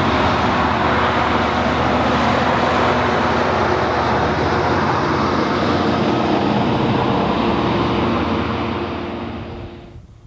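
Diesel-electric locomotives of a narrow-gauge coal train working in notch eight up a long grade: a loud, steady engine drone with several held tones. It fades over the last couple of seconds and cuts off abruptly near the end.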